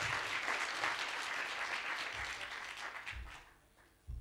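Audience applauding, the clapping fading out about three seconds in. A short low thump comes near the end.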